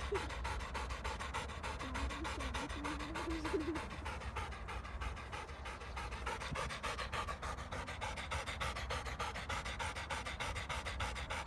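Labrador retriever panting rapidly and steadily, out of breath from running.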